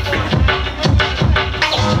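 Hip-hop beat played from vinyl on two turntables through a DJ mixer, with the record scratched by hand over a thumping kick drum.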